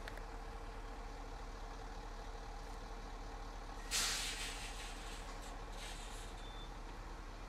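Steady hum of road traffic, with one sudden burst of hiss about four seconds in that fades over about a second.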